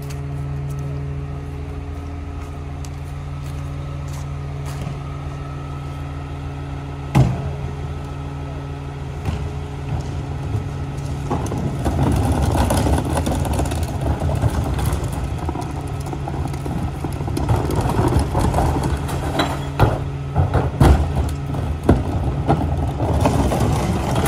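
Rear-loader garbage truck's diesel engine running steadily, with a single sharp knock about seven seconds in. From about halfway the sound grows louder and busier, with clattering knocks from plastic wheeled trash carts being rolled and tipped into the rear hopper.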